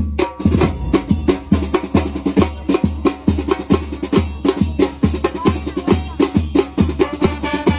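A band playing an upbeat tune: held pitched notes over a steady, fast drum beat of about two strokes a second.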